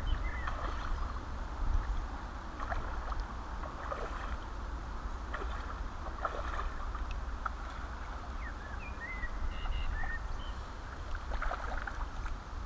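Riverbank ambience: a steady low rumble and outdoor hiss, with a few short high chirps past the middle and faint scattered clicks.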